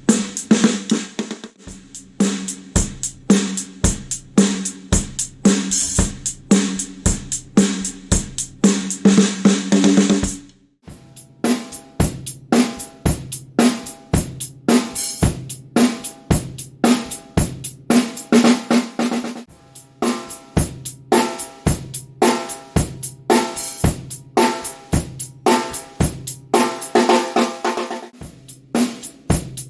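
Drum kit beat played as a snare drum sound test, with kick drum, snare and hi-hat or cymbals in a steady rhythm. The playing stops briefly about ten seconds in, then resumes with the snare's ring more audible.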